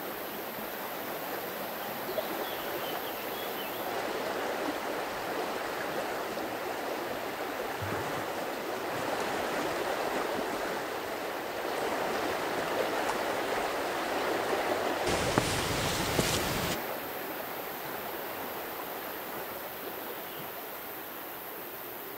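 Rushing water of a swollen river running under a wooden footbridge, growing louder toward the middle and then fading. About two-thirds of the way through there is a short, loud, low rumble.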